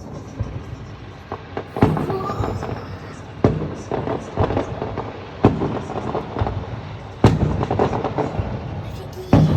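Aerial fireworks salute: loud bangs of shells bursting about every two seconds, with smaller crackling pops between them.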